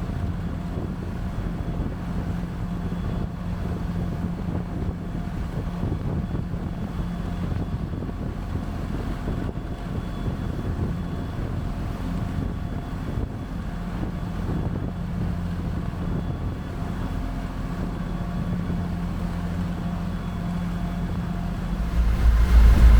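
Passenger boat's engine running steadily, a low hum heard on board with wind and water noise. Near the end it suddenly gets much louder with a deep rumble.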